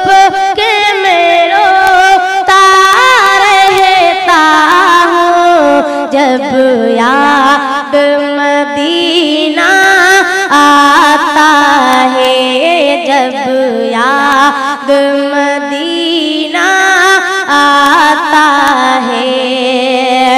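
A boy's solo voice singing an Urdu naat through a microphone and PA, drawing out long held notes that waver and step up and down in ornamented runs.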